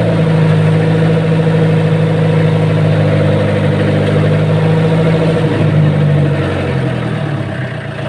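Fishing boat's engine running steadily, its note dropping and easing off a little near the end.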